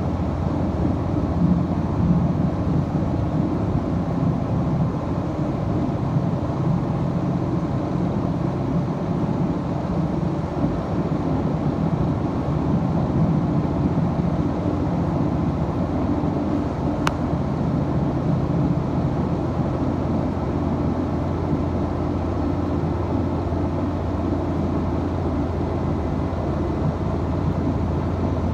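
Diesel engine of a Hokuto limited-express railcar running steadily under way, heard from inside the passenger cabin as a constant low drone with running rumble.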